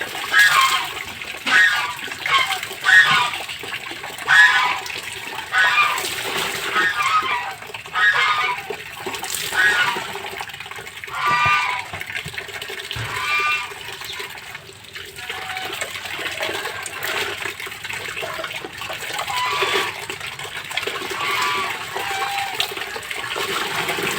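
Laundry being scrubbed by hand in soapy water: rhythmic scrubbing strokes about every second and a half, with wet squeaks and splashing, growing looser and softer about halfway through.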